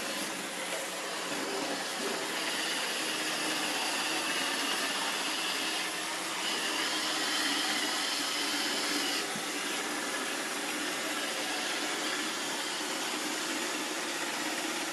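Robot vacuum cleaner running with a steady whir, a faint high whine coming and going over it.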